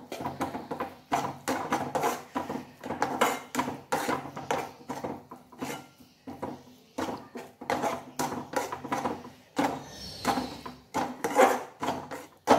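A spatula scraping and knocking against a metal kadhai in quick, repeated strokes as thick caramelised sugar and crushed almonds are stirred, kept moving so the butterscotch does not catch on the bottom.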